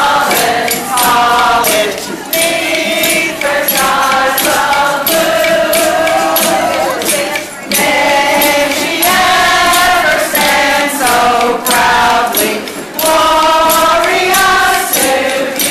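A group of women singing together in chorus, with strummed acoustic guitars and shaken maracas keeping a steady beat.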